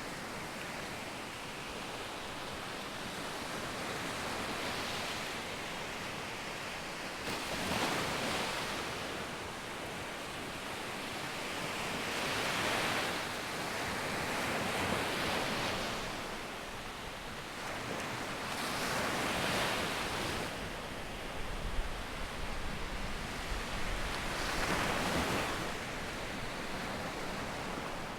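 Sea waves breaking and washing up on a beach, the surf swelling into a louder surge every few seconds.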